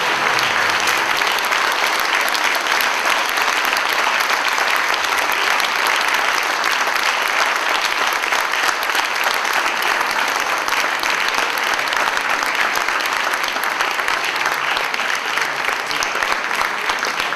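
Audience applauding: steady clapping from a large seated crowd.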